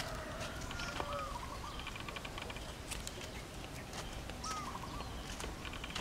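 Birds calling outdoors: two short whistled calls, rising then falling, about three seconds apart, and several quick trains of high ticking notes over a low steady background.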